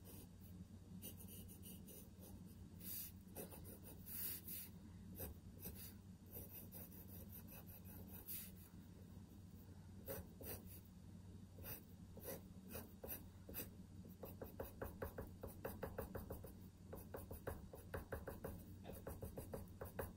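Graphite pencil scratching on paper in quick sketching strokes, with a run of short, rapid strokes in the last several seconds, over a faint low hum.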